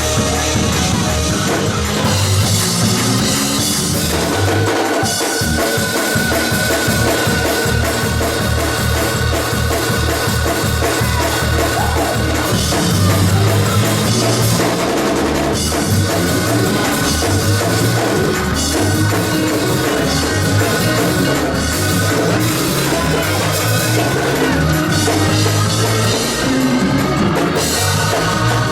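Live church praise band playing an up-tempo instrumental with drum kit, bass and keyboard, a steady driving beat.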